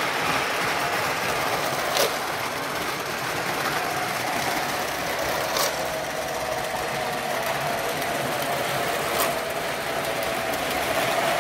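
O scale model train running on its track: a steady rumble of wheels and motor with a faint hum, broken by a sharp click about every three and a half seconds.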